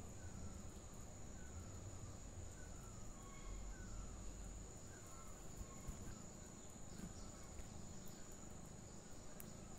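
Faint background ambience: a steady high-pitched whine with quiet, short falling chirps repeating about every half second to a second, over a low rumble.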